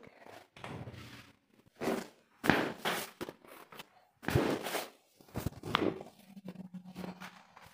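Handling noises of a chiropractic adjustment: several short rustles and thuds as the patient is moved and pressed on the treatment table, with one sharp click about six seconds in.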